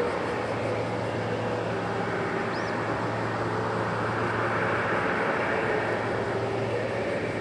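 Distant jet engines of an Airbus A340-600 on final approach: a steady rumble with a faint wavering hum.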